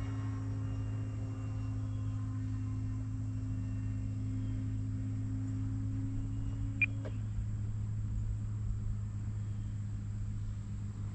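Electric motor and propeller of an FMS Ranger 1.8m RC plane, a steady drone from the air. Its upper tone steps down in pitch about seven seconds in, as the throttle is eased back, just after a brief high chirp.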